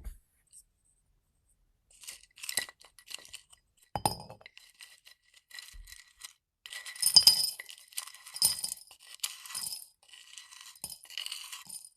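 Dried herbal ingredients handled and dropped into a hard container, making light clinks and crisp rustling. The sound starts about two seconds in and is busiest past the middle.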